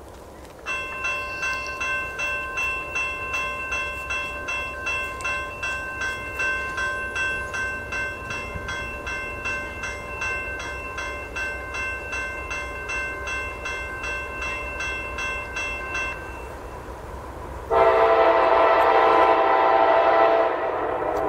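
Railroad crossing bell ringing in a steady rapid beat, about three strokes a second, stopping about 16 seconds in. Near the end a freight locomotive's horn sounds one long, loud, several-note chord lasting about three seconds.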